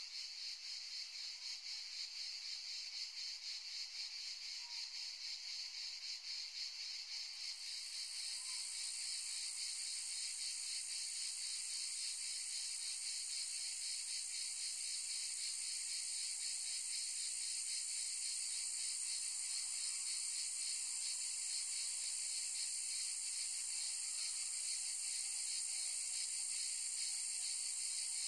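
A chorus of cicadas making a dense, steady high-pitched buzz with a fine pulsing texture. A second, higher-pitched layer joins about seven seconds in and carries on.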